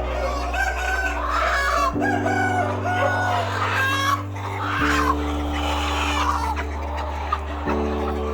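Chickens clucking and crowing over background music whose long, low held notes change every two to three seconds.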